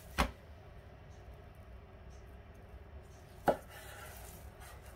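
Chef's knife cutting through a slab of steamed vegan tofu-and-gluten ham, knocking against the wooden cutting board twice, about three seconds apart.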